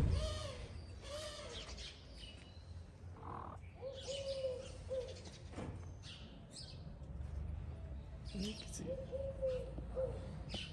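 Pigeons cooing in short repeated phrases of a few soft notes, with small birds chirping now and then. A thump at the very start is the loudest sound.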